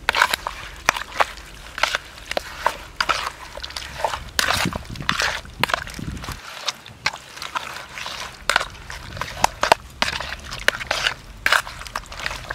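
Raw pork pieces being squeezed and turned by hand in marinade in a plastic bowl: a run of irregular wet squelches and sloshes.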